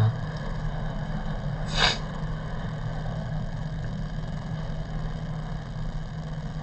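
Steady low hum of room or equipment noise during a pause in speech, with one short hiss-like burst about two seconds in.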